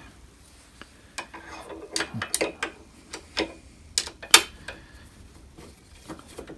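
Scattered light metallic clicks and taps of a T-handle hex key engaging and turning a set screw on a drill press's handwheel and bevel-gear shaft assembly, with the sharpest clicks a little after four seconds in.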